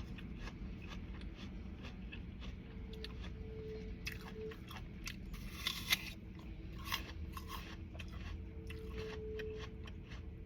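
Close-up chewing of crunchy food: a run of crisp crunches and mouth sounds, with one sharper crunch about six seconds in, over a low steady hum.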